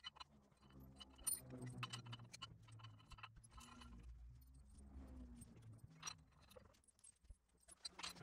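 Faint clinks and taps of metal parts and tools being handled while a steel engine stand is bolted together, over a low hum.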